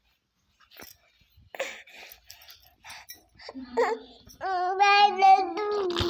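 A small child's voice: a few short sounds, then from about four and a half seconds a loud, long, drawn-out vocal sound held on steady stepped pitches.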